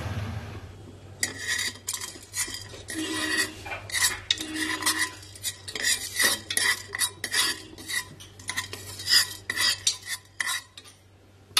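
A spoon scraping and clinking against the bottom of an aluminium pressure cooker, stirring whole spices as they are dry-roasted: quick, irregular scrapes and clinks with a metallic ring, starting about a second in and stopping just before the end.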